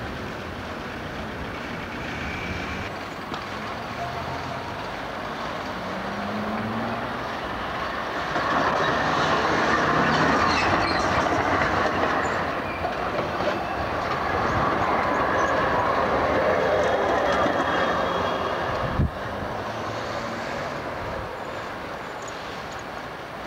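GVB Amsterdam street tram running along the rails: the rumble and rattle of steel wheels on street track swells to its loudest in the middle as it passes close, with a few brief high wheel squeals. A single sharp thump near the end.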